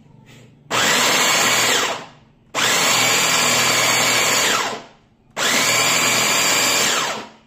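Glen SA4043 Turbo electric mini chopper's motor whirring in three pulses of one to two seconds as its blades chop cauliflower pieces. Each pulse starts at once and winds down in pitch as the button is let go.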